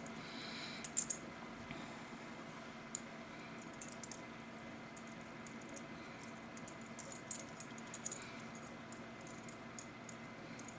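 Jewelry being handled: faint, scattered small clicks over a low steady hum.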